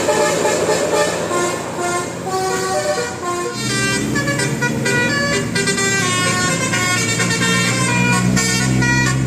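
Bus telolet horn of the basuri type playing a quick melody of short stepped notes. A low steady hum joins about three and a half seconds in.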